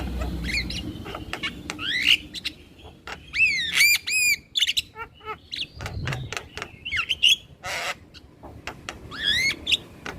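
Male Javan myna (jalak kebo) calling: a jumble of sharp clicks and harsh squawks, with a quick run of arched whistled notes about four seconds in and rising whistles near the end.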